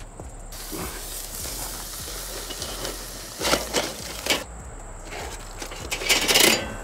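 Metal spatulas clinking and scraping against a kettle grill's wire cooking grate while a bacon-wrapped meatloaf on parchment is turned. A few sharp clinks come about halfway through and a louder scrape comes near the end, over a steady sizzling hiss in the first few seconds.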